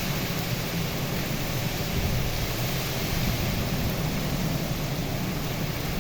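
Rain falling in strong wind: a steady, even rushing noise.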